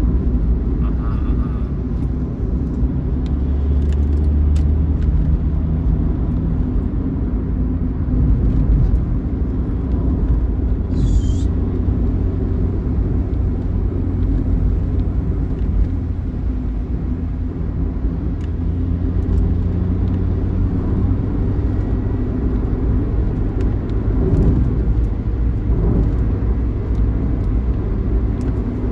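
Steady low rumble of a moving bus's engine and road noise at highway speed, heard from inside the vehicle, with a brief high hiss about eleven seconds in.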